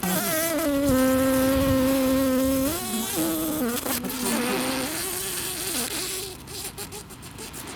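Asian honey bees (Apis cerana) close to the microphone. One bee's wing buzz holds a steady pitch for about three seconds, then wavers and fades out about six seconds in. Behind it runs the colony's hissing, an alarm signal most likely set off by the microphones in their nest.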